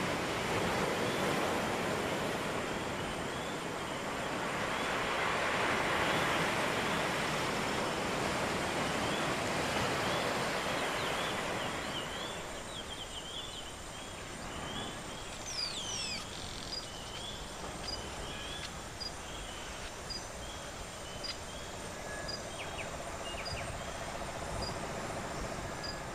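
Waves washing onto a sandy beach, a steady rush that eases off about twelve seconds in. Small birds chirp throughout, and a faint ticking comes about once a second in the second half.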